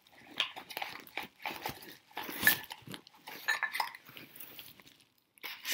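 Bubble wrap and a cardboard sleeve crinkling and rustling as a ceramic dish is unwrapped by hand, with a louder crackle about two and a half seconds in.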